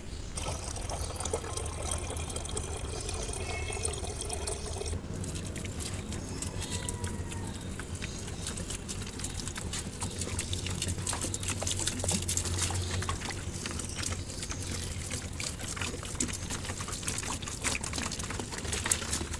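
Water poured from a plastic bottle, splashing and trickling onto the fleshy leaves of aloe vera plants.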